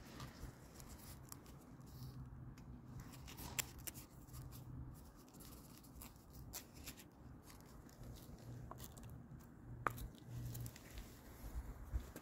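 Faint handling noise: a hand gripping and turning a cardboard firework fountain tube close to the phone. Scattered small clicks and rustles, with one sharper click about ten seconds in.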